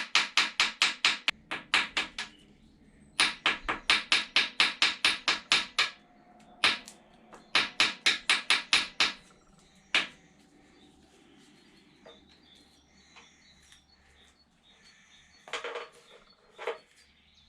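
Hammer tapping rapidly on a metal part, about five or six sharp blows a second, in three runs with pauses between. A single harder blow follows about ten seconds in, then a few light knocks near the end.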